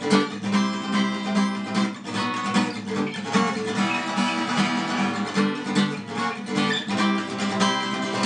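Acoustic guitar strummed in a quick, steady rhythm, chords ringing with no voice: the instrumental break of the song.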